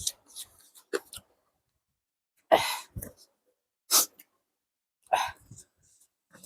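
Close-miked mouth sounds of someone eating rice and curry: three loud, short, noisy mouth or breath noises, about 2.5, 4 and 5 seconds in, with softer smacks and small clicks between.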